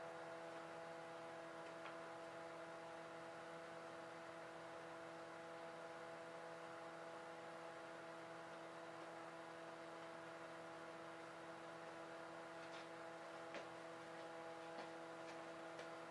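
Faint steady electrical hum made of several even tones, with a few faint clicks near the end.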